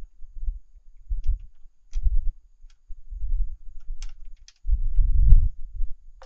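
Wind buffeting the microphone in irregular low rumbles, strongest about five seconds in, with a few faint clicks of hand tools in the engine bay.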